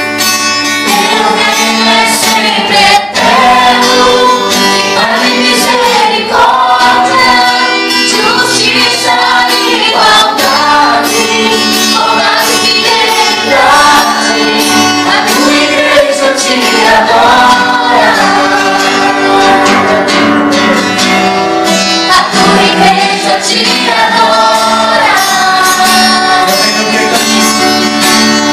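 A woman singing a gospel song into a microphone, accompanied by acoustic guitar under steady held notes.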